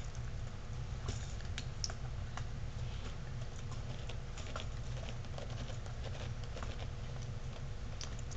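Young Bullmastiff puppies scrambling and nosing about on carpet: scattered small clicks and scuffs, irregular and soft, over a steady low hum.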